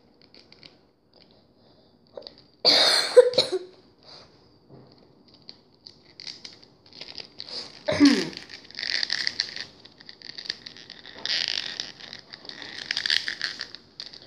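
Hard plastic action-figure parts being handled and pushed together, with scratchy, crinkly rubbing in the second half. A cough comes about three seconds in, and a short falling groan comes near the middle.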